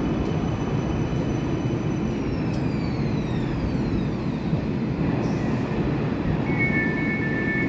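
Parramatta Light Rail tram moving alongside the platform, with a steady rumble of wheels and running gear. A high electric whine over it falls in pitch about two seconds in and fades. Near the end a steady two-note electronic tone begins.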